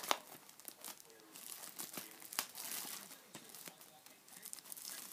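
Clear plastic shrink-wrap crinkling and crackling as it is pulled off a DVD box set by hand. The crackles come in sharp snaps, with a denser stretch of rustling about one and a half to three seconds in.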